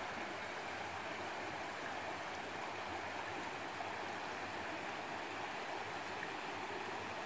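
A woodland stream flowing steadily, water rushing with an even hiss.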